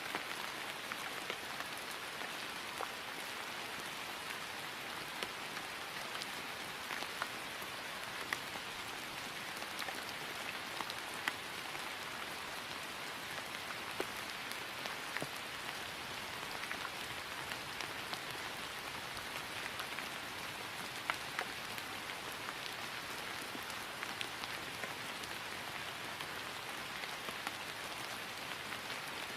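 Steady rain falling on grass, an even hiss with scattered sharper drop ticks standing out now and then.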